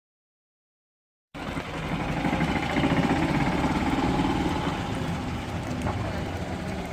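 Silence, then about a second in an engine starts being heard, running steadily with a low, pulsing rumble.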